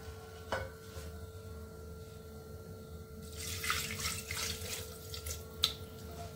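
Rinse water poured from a frying pan into an aluminium pressure cooker, splashing onto the dal and greens inside; the pouring is loudest in the second half. A knock about half a second in and a sharp knock near the end.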